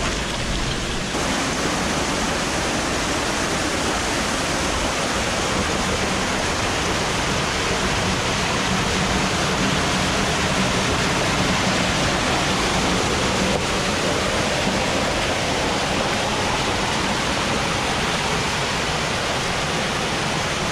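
Cascading water rushing steadily: an even, unbroken roar of water.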